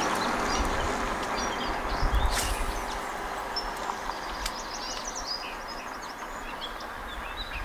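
Outdoor creekside ambience: a steady wash of noise that slowly fades, with a faint hum under it. Small birds chirp, mostly in the second half.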